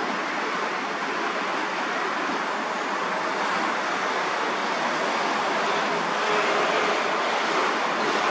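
Steady rushing noise of a departing train moving away down the line, growing a little louder about six seconds in.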